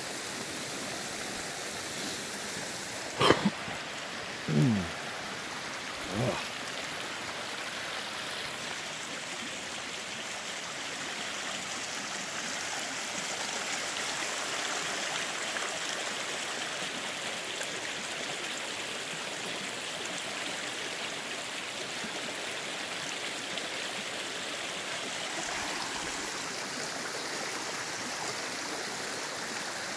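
Small rocky forest creek running, a steady loud rush of water, with three brief low thumps about three to six seconds in.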